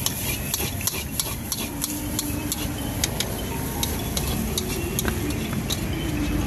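Metal ladle scraping and clinking against a metal wok as fried rice is stir-fried over a gas flame, in quick irregular clicks several times a second, with a light sizzle and a steady low rumble underneath.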